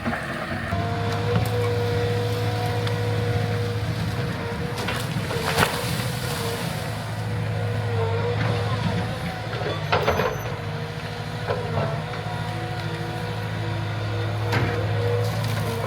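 Heavy diesel construction equipment running steadily, with a wavering whine above the engine hum and occasional sharp metallic clanks.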